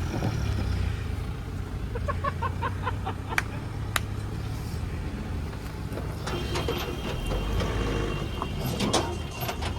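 Mahindra Bolero SUV's engine running with a steady low hum as it crawls over a rough dirt track, with two sharp knocks about three and four seconds in.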